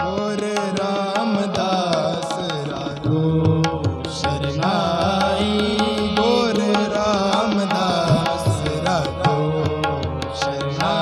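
Sikh shabad kirtan: harmonium chords and tabla strokes under a sung melody whose notes glide and bend.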